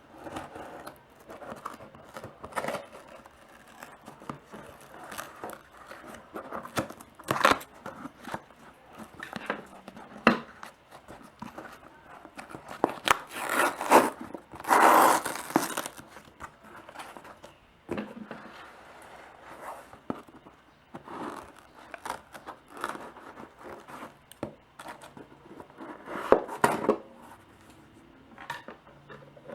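Smartphone box packaging being opened by hand: crinkling and tearing of wrapping, with scattered clicks and taps. Near the middle comes a louder ripping that lasts two or three seconds.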